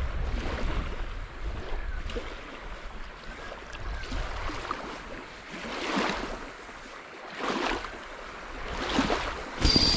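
Wind buffeting the microphone and small waves washing at the shoreline, the water swelling and fading every second or two. Just before the end comes a sharp knock, and a steady high whine begins.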